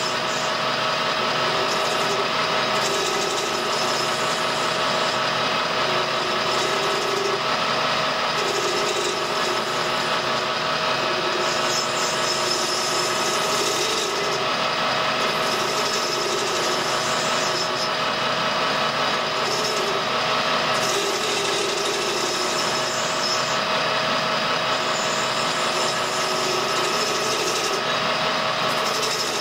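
A Colchester metal lathe turns brass with a homemade ball-turning cutter: a steady machine whine, with a rasping cutting noise that comes and goes every second or two as the cutter works around the brass.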